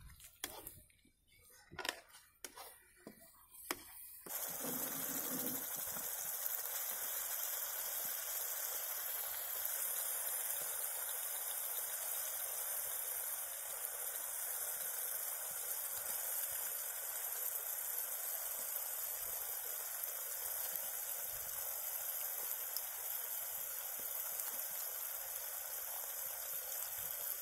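A few sharp knocks. Then, about four seconds in, a steady hissing sizzle begins as raw chicken pieces fry in hot masala paste in a kadai.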